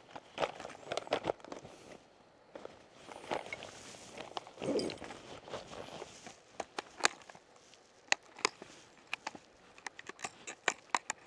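An angler's footsteps crunching and scuffing on streambed gravel, with irregular sharp clicks scattered through.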